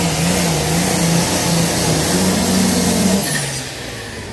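Pulling tractor's diesel engine running hard at high revs under full load, dragging the weight sled, its note wavering up and down. About three seconds in the engine note drops and the sound eases off as the throttle comes back at the end of the pull.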